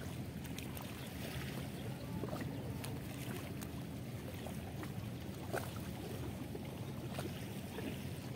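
Harbour waterside ambience: a steady low rumble with faint light ticks scattered through it.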